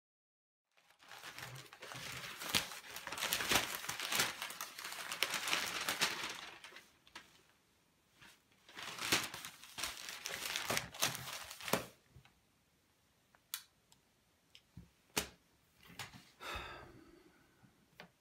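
Crinkling, rustling noise in two long stretches, then a few separate sharp clicks.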